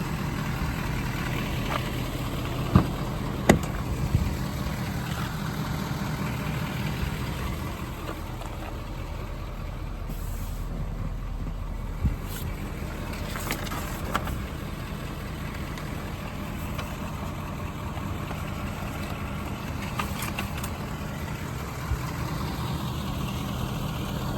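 Ford 6.7 L Power Stroke V8 turbodiesel idling steadily, with a few sharp clicks about three seconds in and again near twelve seconds.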